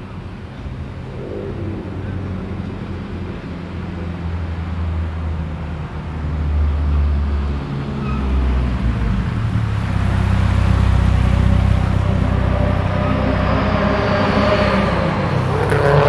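BMW E30 M3 Sport Evolution's four-cylinder S14 engine running at low revs, growing gradually louder, then revving up near the end.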